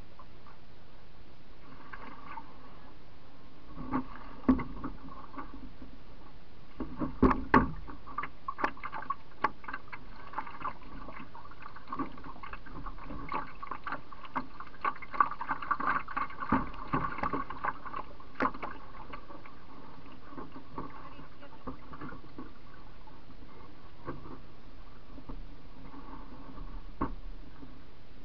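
Water splashing and gurgling against a canoe's hull as it floats through rippled water, with irregular sharp knocks against the hull, most of them in the middle stretch.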